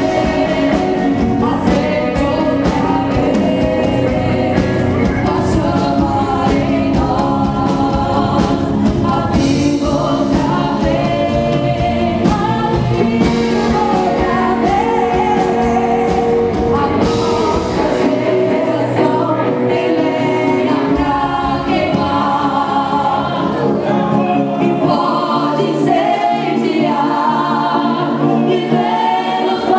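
Christian worship music: a group of voices singing with band accompaniment. About two-thirds of the way through, the bass and drums drop out and the singing carries on over lighter accompaniment.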